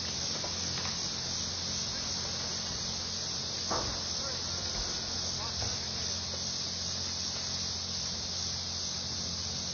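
Steady evening insect chorus, a dense high shrill, with a low steady hum beneath it and one short knock about four seconds in.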